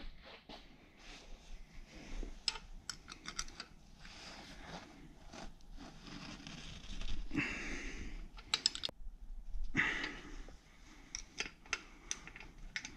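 Irregular metallic clicks and rattles of a hand tool and bolts while the U-joint strap bolts on the rear driveshaft yoke are fastened, with a few quick runs of clicks and some rustling handling noise.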